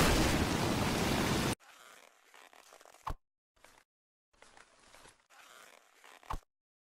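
Cartoon fire extinguisher blasting a loud hiss of spray for about a second and a half, cutting off suddenly. Then, much quieter, two arrows strike a target with a short thud each, about three seconds apart.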